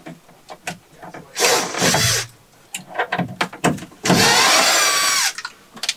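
Power drill running in two bursts of about a second each, driving fasteners to secure a shiplap ceiling board, the motor's pitch dropping as each burst ends. Light knocks and taps come between the bursts.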